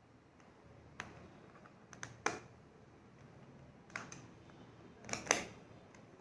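Scattered sharp clicks and taps of small plastic parts and a screwdriver as a Bluetooth speaker's housing is screwed back together, about five or six separate clicks with a pair close together near the end.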